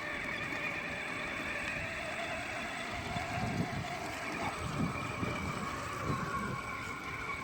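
Radio-controlled truck driving while towing a trailer: its motor and gears give a steady whine that shifts slightly in pitch, with irregular crunches from the tires over dirt.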